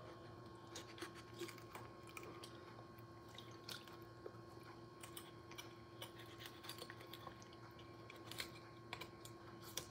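Faint sounds of a kitchen knife cutting a raw whole chicken on a wooden cutting board: scattered soft clicks, crunches and squishes, over a steady faint hum.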